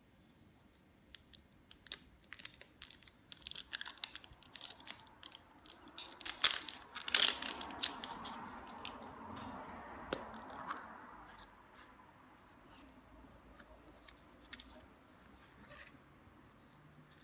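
Plastic wrap being torn and peeled off a plastic capsule egg: a dense run of sharp crackles, loudest about six to seven seconds in, giving way to softer rustling and then a few light clicks as the capsule is handled.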